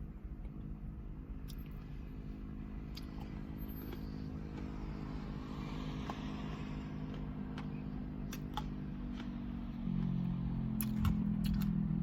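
Car engine idling with a steady low hum, which grows louder and deeper about ten seconds in. A few faint light clicks sound over it.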